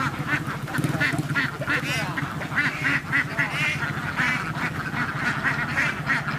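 A large flock of domestic laying ducks quacking: many overlapping calls in a dense, unbroken chorus over a steady low hum.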